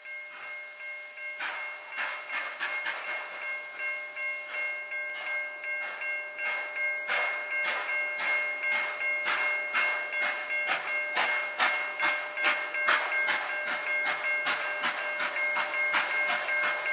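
C38-class steam locomotive 3801 working toward the listener, its exhaust beats coming in a quick, even rhythm and growing louder as it approaches. A steady high tone of several notes sounds beneath the beats.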